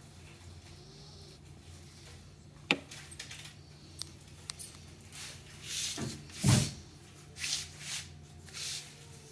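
A sleeping dog's breathing noises: a few light clicks, then a run of short, breathy snores and snuffles less than a second apart, the loudest about six and a half seconds in.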